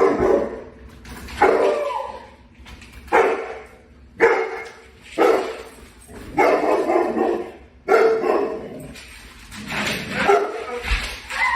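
A dog barking repeatedly, about eight or nine barks spaced roughly a second apart.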